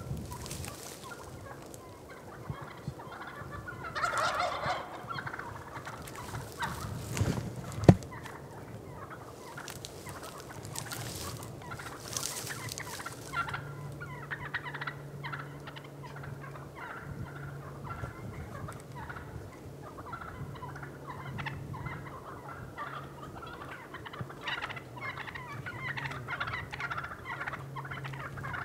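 Wild turkeys calling: a loud gobble about four seconds in, then a single sharp click. From the middle on, soft quick clucking chatter sits over a low hum that comes and goes in stretches.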